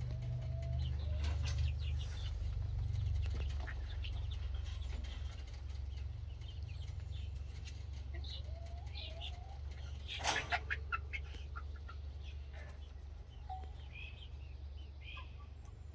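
Young chicks calling and clucking, with scattered wing flutters and a brief scramble about ten seconds in, over a steady low rumble.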